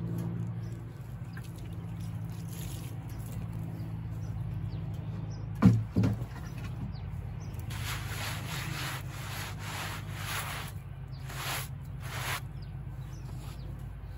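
Gloved hands wiping a liquid over the freshly sawn face of a hemlock slab. The strokes come several times in a row in the second half. Under it runs the steady hum of the sawmill's Kohler engine idling, and there is a single sharp thump about six seconds in.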